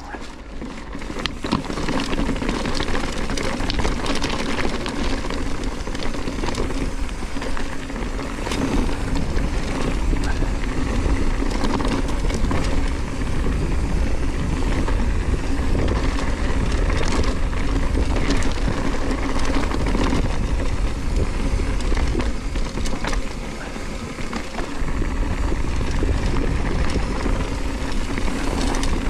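On-One Scandal hardtail mountain bike riding a dirt and gravel trail: tyres crunching and rumbling over stones, with many small rattles and clicks from the bike. Low wind rumble on the microphone runs under it, and the noise builds over the first two seconds as the bike gets going.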